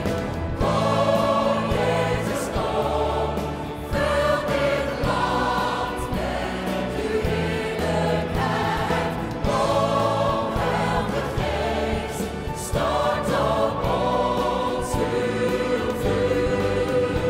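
A large choir and congregation singing a worship song together, led by soloists on microphones, over band accompaniment.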